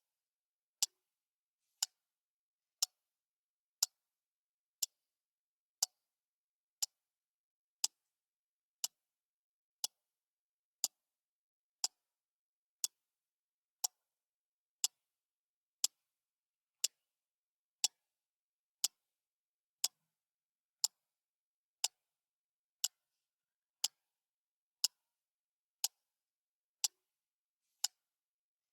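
A clock ticking steadily once a second, each tick short, sharp and bright, with silence between the ticks.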